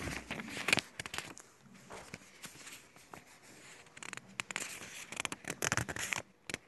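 Irregular crackling and clicking, thickest in the first second and again from about four seconds in, with a faint hiss between.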